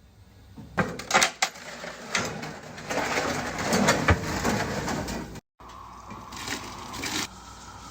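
Meat cooking in a pot: a few sharp knocks and clatter about a second in, then sizzling and crackling, with a steadier sizzle after a break midway.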